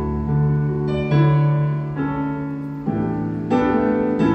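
Stage keyboard playing slow, held piano chords, with a new chord struck every second or so.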